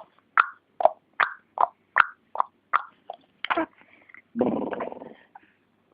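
Tongue clicks imitating a horse's hooves clip-clopping, about nine in an even rhythm of roughly two and a half a second. They are followed by a short, rough buzzing blow through the lips, like a horse's snort.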